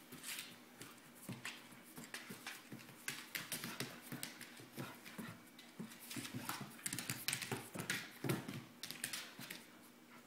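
A dog's claws clicking and scrabbling on a hardwood floor in quick, irregular taps as it spins around chasing its tail, busiest in the second half.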